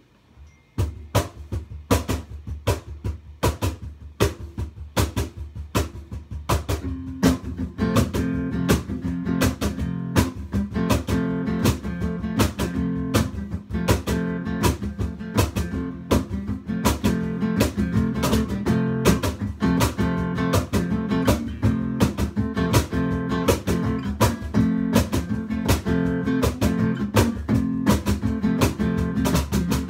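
Acoustic guitar strummed in a steady rhythm as an instrumental intro, starting about a second in. The playing grows fuller and lower from about seven seconds in.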